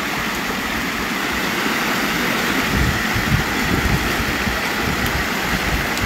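Water pouring steadily from a concrete outlet into a shallow channel, a constant rushing hiss. Uneven low rumbling joins it from about halfway in.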